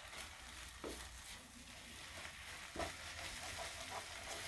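Egg cooking faintly sizzling in a nonstick pan, with a wooden spatula scraping and knocking on the pan a couple of times as it breaks and spreads the egg.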